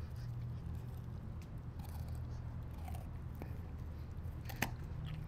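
Rottweiler puppy chewing and biting a piece of red food, with scattered small crunches and one sharp click about four and a half seconds in, over a steady low hum.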